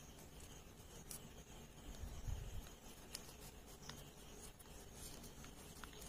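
Faint rustling and crinkling of a small square of paper being folded and creased by hand, with a few soft clicks and a dull bump a little over two seconds in.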